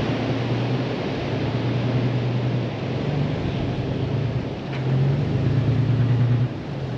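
Toyota Troop Carrier's engine running as the vehicle reverses slowly across the sand, a steady low hum that grows louder as it nears and cuts out about six and a half seconds in. Surf and wind hiss under it throughout.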